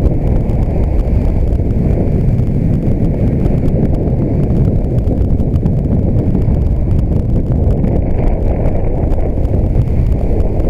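Wind rushing over the microphone of a helmet-mounted action camera on a moving road bike: a loud, steady low rumble with no pauses.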